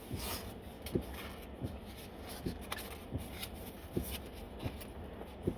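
A person chewing food with soft mouth smacks at a steady pace, about every half second or so, with light rubbing and rustling as the food is handled.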